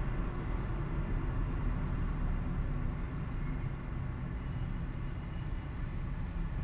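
Steady low rumble of a car driving, road and engine noise picked up by a dashcam inside the car, easing slightly about halfway through.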